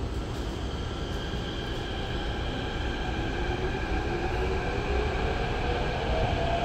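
SMRT CT251 train's traction motors whining as it gets under way, over a steady running rumble. From about halfway through, the whine rises steadily in pitch and grows louder as the train accelerates.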